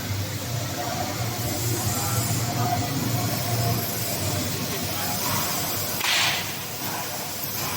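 Machinery running with a steady low hum, and a short burst of hiss about six seconds in.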